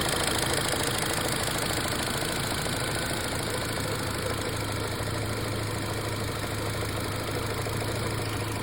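The 2005 Mini One's 1.6 engine idling steadily, with a low hum that grows a little stronger about halfway through. It is running to push air out of the coolant system during bleeding.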